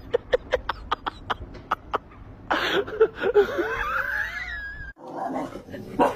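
A quick run of short sharp clicks, about five a second, for the first two seconds. Then a person breaks into high, wheezing, shrieking laughter whose pitch swoops up and down, cut off abruptly near the end.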